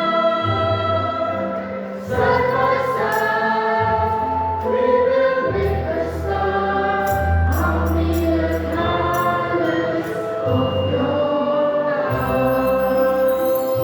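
A choir singing held chords over an instrumental accompaniment, the harmony changing about every two seconds over low bass notes.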